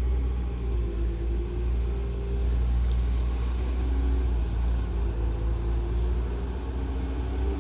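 Caterpillar excavator's diesel engine running steadily: a constant low rumble with a faint wavering hum above it.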